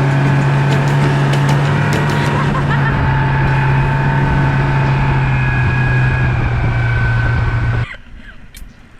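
Motorboat engine running steadily at speed, a constant low hum under a rush of wind and water noise, cutting off suddenly about eight seconds in.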